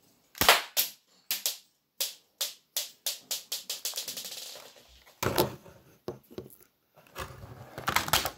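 Airsoft Colt pistol snapping and clicking as it is fired and worked: a string of sharp clicks that crowd together about three to four and a half seconds in. Near the end comes a denser clatter of handling knocks as the pistol is set on a wooden table.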